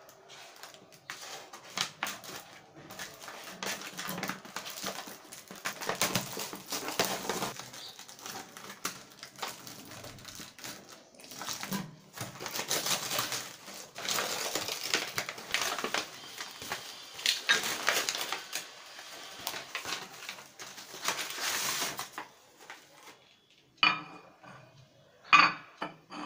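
Plastic film and paper packaging crinkling and tearing as a parcel is unwrapped by hand. Near the end, two sharp knocks as a ceramic baking dish is set down on the counter.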